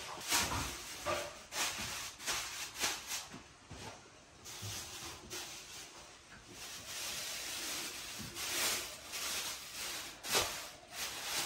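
Thin clear plastic bag rustling and crinkling in irregular bursts as it is shaken out and gathered up in the hands.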